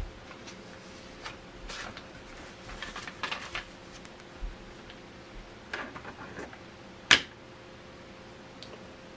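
Small plastic building-set pieces handled and clicked together: scattered light clicks and rustling, with one sharp, loud click about seven seconds in.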